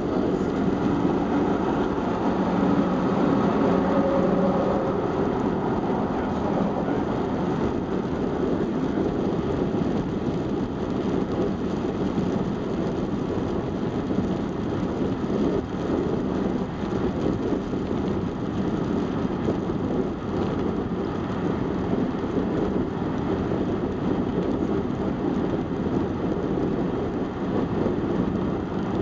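Steady road noise inside a car cruising at highway speed: tyres on asphalt, engine hum and wind.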